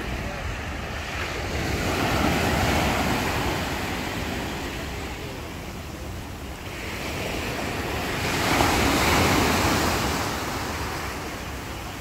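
Small Black Sea waves breaking and washing up a shingle beach, the surf swelling twice, the louder wash about nine seconds in. A low wind rumble on the microphone underlies it.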